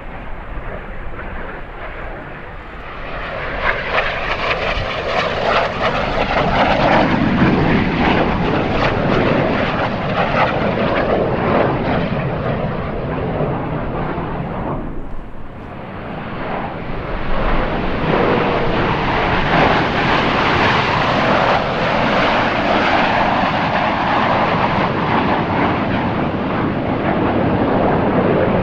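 Jet noise of Snowbirds CT-114 Tutor jets, single J85 turbojets, flying past. It swells a few seconds in, dips briefly around the middle, then swells again and stays loud.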